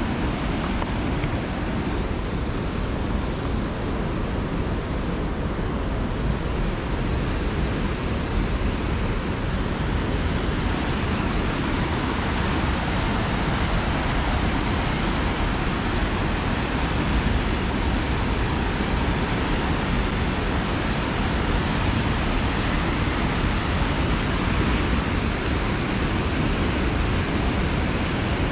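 Steady rushing of the Big Almaty River's water flowing fast down its concrete channel and over small weir drops.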